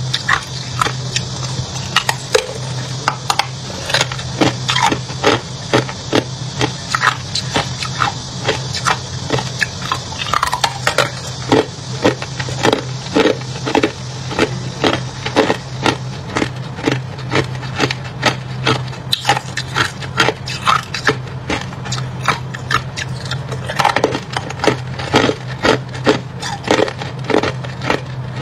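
Hard clear ice being bitten and chewed: a rapid run of sharp, loud cracks and crunches, about one or two a second, over a steady low hum.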